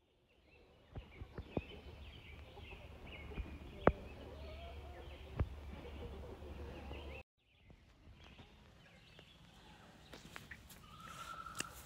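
Quiet outdoor background: a low rumble with a few sharp clicks and faint high chirps. The sound cuts out for a moment about seven seconds in, then the faint background resumes.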